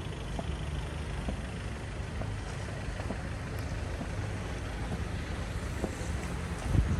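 Street traffic on a rain-wet road: a steady rumble of engines with the hiss of tyres, and a brief louder low rumble near the end.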